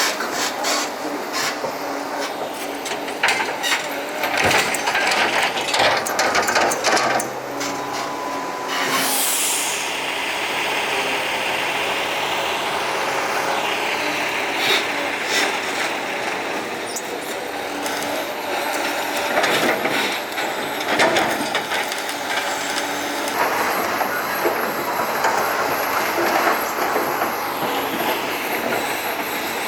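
Logs being loaded onto a logging truck: a loader's engine running under a string of wooden knocks and metal clanks, with a high falling metal squeal about nine seconds in.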